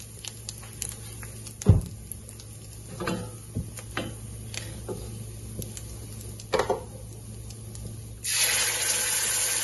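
Oil frying gently in a steel pan, with a wooden spatula knocking against the pan a few times. About eight seconds in, the wet ground masala paste goes into the hot oil and it breaks into a sudden loud sizzle.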